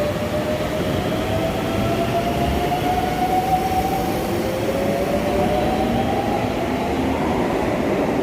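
Keisei electric train accelerating away, its traction motors giving a whine that rises slowly in pitch, then climbs again partway through, over a steady rumble of wheels on track.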